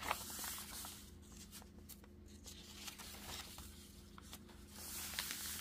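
Paper rustling as the thick pages of a handmade junk journal are turned and paper cutouts are handled, with louder rustles near the start and again near the end.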